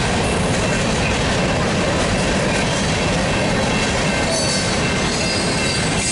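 Freight train cars (covered hoppers and tank cars) rolling past: a steady, loud rumble and rattle of steel wheels on the rails, with a brief high squeal about four seconds in.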